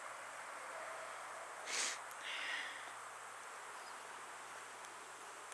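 Faint outdoor background hiss, with a short rustle a little before two seconds in and a brief higher hiss just after it.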